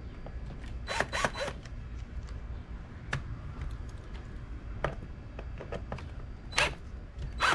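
Hand-tool work on a steering wheel's harness bracket: short rasping, zipper-like bursts about a second in and again near the end, with scattered clicks and knocks of the parts between them.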